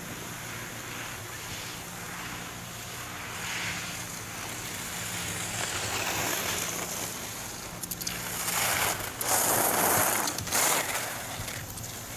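Ski edges carving and scraping on hard-packed snow, a rushing hiss that grows louder as the skier comes close, loudest in a few surges between about eight and eleven seconds in. A steady low hum runs underneath.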